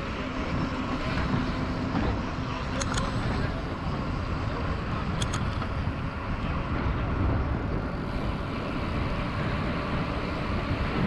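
Steady rush of wind on a GoPro microphone mixed with mountain bike tyre noise while riding, with two short clicks about three seconds in and again about five seconds in.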